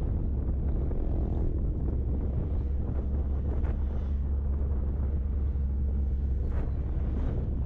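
Steady low rumble of a car driving along a road, with wind blowing on the microphone.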